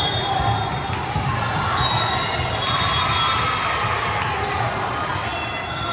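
Basketball game sounds in a gym: a ball bouncing on the court amid crowd chatter, with short high sneaker squeaks, the clearest about two seconds in.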